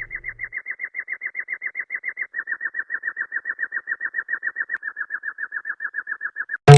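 A cartoon sound effect of rapid, evenly spaced high chirps, about ten a second, that step down in pitch twice. It is cut off by a sudden loud hit at the very end.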